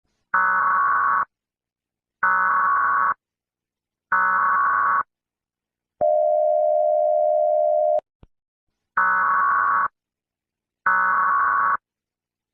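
Emergency Alert System-style alarm: harsh electronic tone bursts about a second long, repeating every two seconds. About six seconds in they give way to one steady, lower tone held for two seconds, followed by a brief click, and then the bursts resume.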